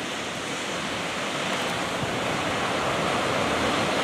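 Sea surf breaking and washing against a rocky shore of volcanic rock, a steady rushing that swells a little louder over the seconds.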